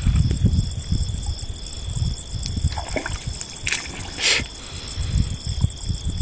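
Water trickling and sloshing in an uneven low rumble at the river's edge, under a steady high-pitched insect trill, with a short hiss about four seconds in.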